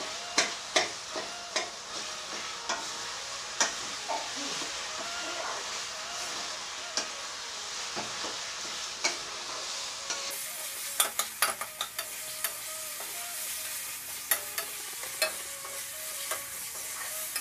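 Spice paste and fried rice sizzling in hot oil in a metal karahi while a spatula stirs and scrapes, with sharp knocks now and then as it strikes the pan. This is the masala being sautéed (koshano).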